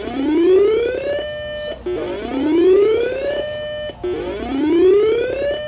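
Emergency Alert System alert sound on a radio broadcast: a siren-like whoop that rises in pitch for about a second and holds briefly at the top, repeated three times about two seconds apart, with a short chirp before each rise.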